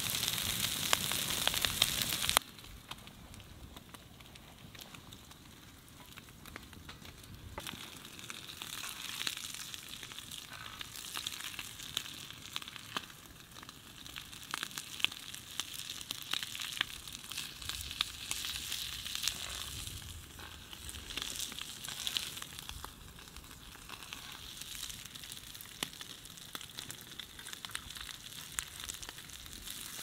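Meat patties sizzling in a frying pan over a wood fire, loud at first, then much quieter after about two seconds, with scattered small crackles and clicks.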